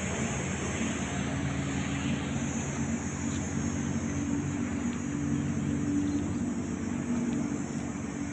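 A motor engine running steadily: a low hum that drifts a little in pitch, over a constant hiss.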